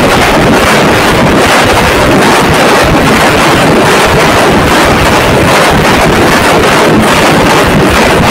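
Dhol-tasha ensemble playing together: many large barrel dhols beaten with sticks alongside tasha drums, a dense, unbroken wall of rapid drumming. The drumming is so loud at close range that the recording overloads into a continuous roar.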